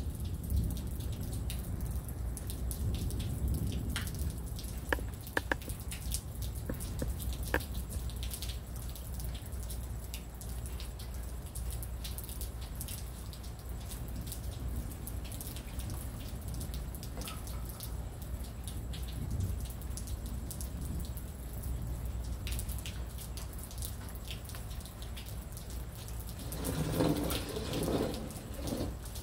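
Rain dripping during a storm: scattered drops tap close by over a steady low rumble. Near the end a louder swell of noise rises and fades.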